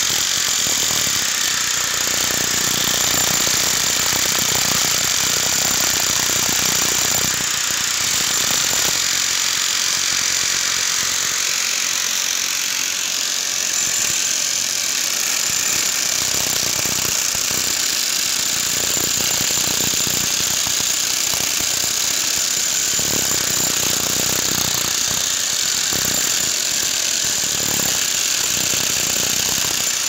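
Several corded electric demolition hammers breaking concrete at once, a continuous dense hammering.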